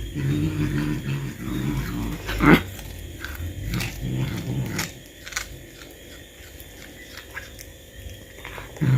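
Cat growling low while gnawing a meat bone, with a sharp crack about two and a half seconds in and scattered clicks of teeth on bone through the second half.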